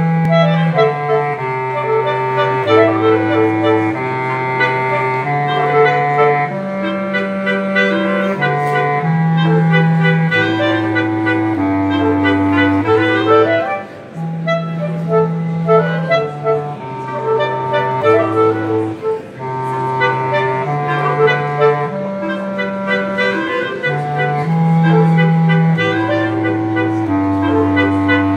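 Clarinet trio with a bass clarinet playing a conducted piece. A low bass-clarinet line steps up and down under held upper notes and runs of short repeated notes. The music breaks briefly about halfway through, then the phrase starts again.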